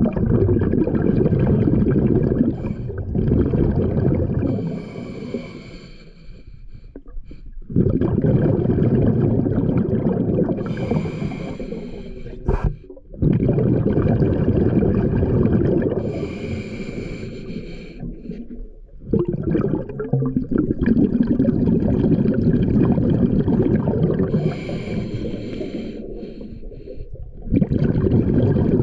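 A scuba diver breathing through a regulator, heard through an underwater camera: long rushing, bubbling exhalations of a few seconds each, with short quieter breaks for the in-breaths. A sharp click comes about halfway through.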